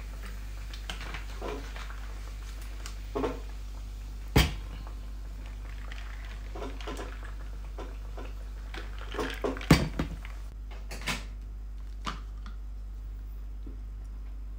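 Scattered knocks and clinks of a drinking glass and bottles being handled and set down on a stainless-steel kitchen counter, the sharpest about four and a half seconds in and a cluster around nine to ten seconds, over a steady low hum.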